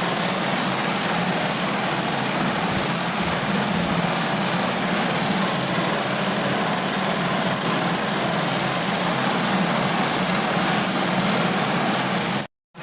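Steady rain drumming on a car roof, heard from inside the car as an even, unbroken hiss. The sound drops out completely for a moment near the end.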